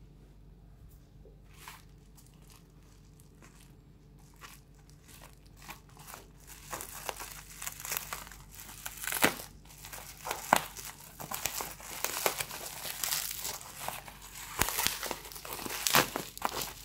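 Black plastic parcel wrapping being handled and pulled open by hand: a few faint light taps at first, then from about six seconds in, steady crinkling with sharp loud crackles as the plastic is torn.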